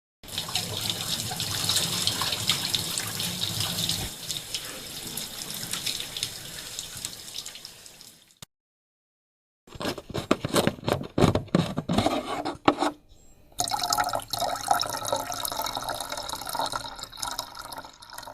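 A run of everyday sound effects. A tap runs with water splashing for about eight seconds. After a short break comes a quick series of sharp clicks and knocks, then a further noisy stretch.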